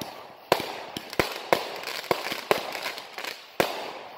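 Aerial fireworks going off in quick succession: about eight sharp bangs, some fainter than others, each trailing off in a fading wash of noise before the next.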